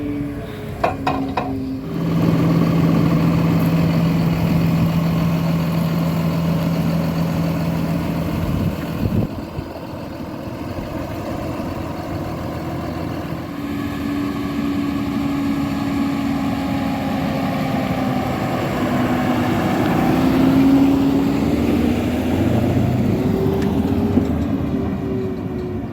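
John Deere 7430 Premium tractor's six-cylinder diesel engine running while pulling a slurry tanker with soil injectors, with the sound shifting abruptly about 2 and 9 seconds in. In the second half the engine note rises and falls in pitch.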